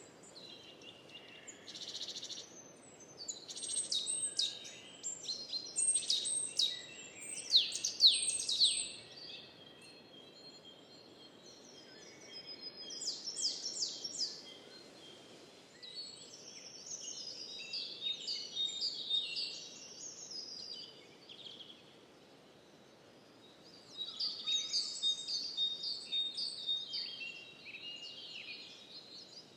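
Songbirds singing and chirping in a recorded natural ambience: quick trills and chirp phrases come and go in several bouts, with short lulls between them, over a soft steady low background noise.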